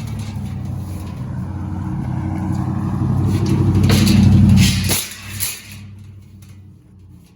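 A motor vehicle's engine running, growing steadily louder until it cuts off abruptly about five seconds in.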